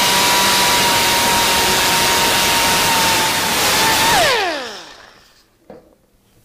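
Small pneumatic right-angle grinder with an abrasive disc running at full speed on the edge of a sheet-steel patch panel: a high steady whine over the hiss of exhausting air. After about four seconds the trigger is released and the whine falls away as the disc spins down.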